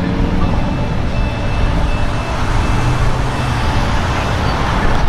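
Steady road traffic noise, an even rushing sound that does not let up.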